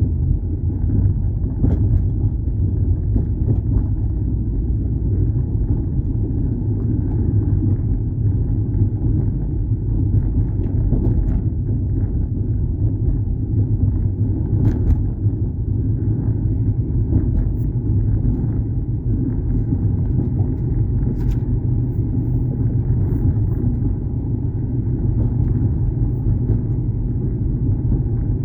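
Steady low rumble of car road and engine noise inside a moving car's cabin, with a few faint clicks.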